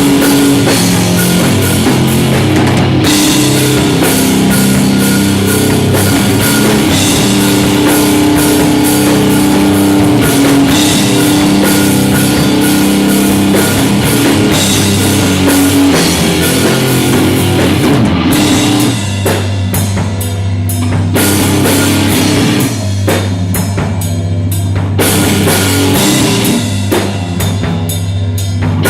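A live rock band playing loud and amplified: drum kit and distorted electric guitar, with no vocals. About two-thirds of the way in the sound thins to a held low note with spaced drum hits.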